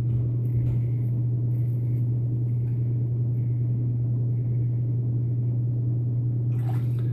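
Vintage Gillette safety razor with a Feather blade scraping through lathered stubble in a few faint strokes, under a steady low hum.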